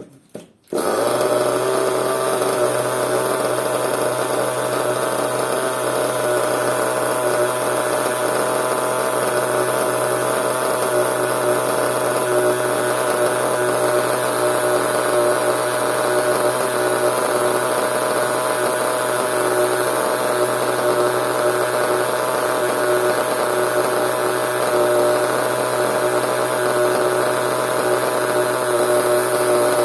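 Small nitro (glow-fuel) engine of an RC monster truck running steadily at one speed, with no revving. It starts abruptly about a second in.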